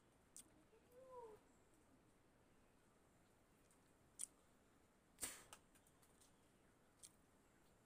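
Near silence, broken about a second in by one faint, short animal call that rises and then falls in pitch, and by a few sharp clicks, the loudest just after five seconds in.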